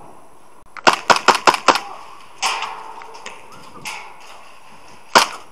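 Airsoft gun firing a quick string of about six sharp shots, followed a little later by a rougher burst of noise and then one more single shot near the end.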